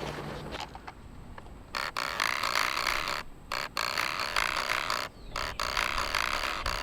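Cicadas buzzing in a dense, loud chorus that starts about two seconds in and breaks off abruptly and resumes several times.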